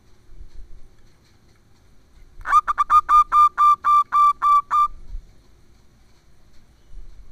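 Zebra dove calling: a run of about ten short, clear notes on one pitch, quick at first and then evenly spaced at about four a second, starting a couple of seconds in and lasting about two and a half seconds.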